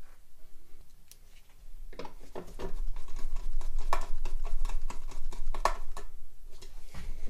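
Small 2 mm hex screwdriver turning screws into a thin metal amplifier enclosure, with gloved hands handling the case. After a quiet start, a run of small clicks and scratchy ticks begins about two seconds in and stops shortly before the end.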